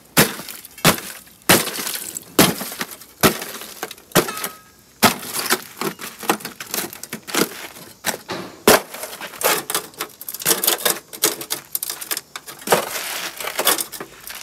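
Rusted sheet-metal floor pan of a 1965 VW Beetle cracking and crunching as it is worked loose and pulled off: a long run of irregular sharp snaps and crunches.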